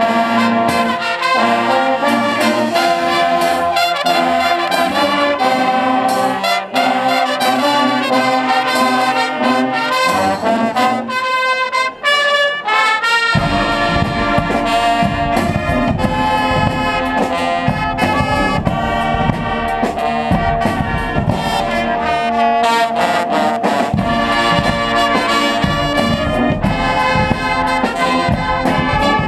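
Guggenmusik carnival band playing: trumpets, trombones and sousaphones over bass drum, snare drums and cymbals. About ten seconds in, the bass and drums drop out for a few seconds, leaving the high brass on its own, then the drums come back in with heavy beats under the full brass.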